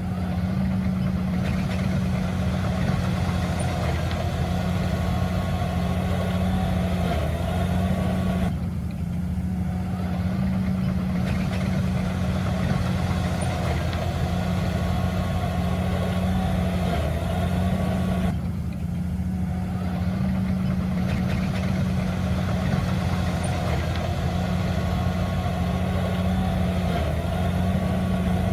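Heavy earthmoving machine's diesel engine running steadily at an even speed. A fainter higher clatter over the engine drops away twice for a couple of seconds.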